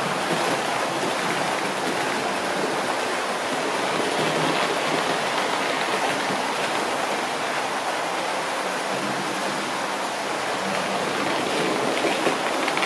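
OO gauge model trains running along the layout track, a steady, even rushing whirr of motors and metal wheels on the rails.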